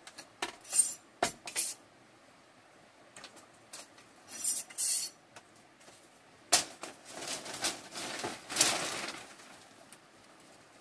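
Thin split-bamboo strips clattering and clicking against one another as they are picked up from a pile and gathered into a bundle. There are irregular light knocks, and a longer rustling scrape about two thirds of the way through.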